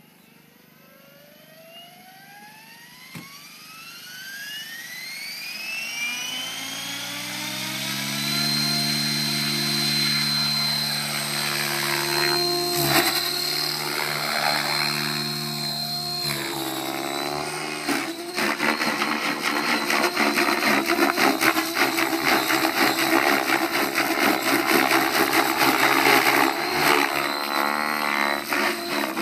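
Align T-Rex 700E Pro DFC electric RC helicopter spooling up: the brushless motor and gear whine rises steadily in pitch over about eight seconds, then holds steady at flying head speed. From about eighteen seconds in, the rotor blades give a loud rapid chopping in flight.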